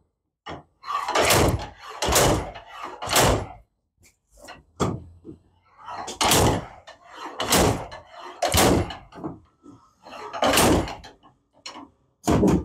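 Heavy hammer blows on the wrecked Subaru's crumpled hood to straighten it: about eight loud metal strikes, roughly a second apart with a short pause midway, plus lighter knocks between them. The blows are really loud.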